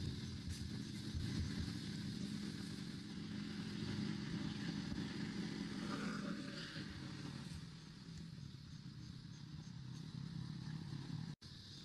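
Motor vehicle engine running steadily with a low hum, easing off about two-thirds of the way through. The sound drops out for an instant near the end.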